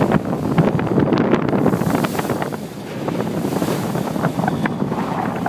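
Gusty wind buffeting the microphone on a boat at sea, over the rush of sea water. The gusts ease off briefly a little before the middle.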